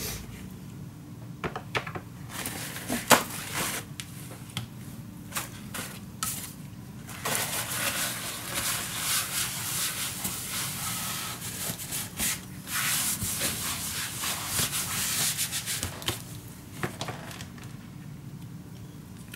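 Paper towel rustling and rubbing in two long stretches, with scattered light clicks and knocks before them.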